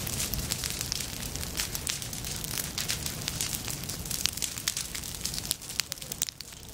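Low flame front of a prescribed prairie burn crackling through dry leaf litter and dead stems: a dense, irregular run of sharp pops and snaps over a steady low rumble, with one of the loudest pops a little past the middle.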